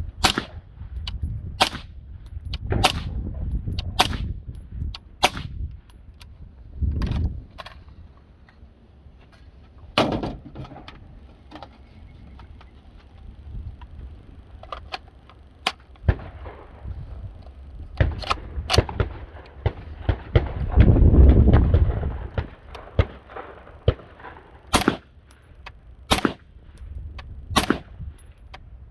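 Suppressed 5.56 rifle fired in single shots, about fifteen at uneven spacing, some about a second apart and others several seconds apart. There is a low rumble about two-thirds of the way in.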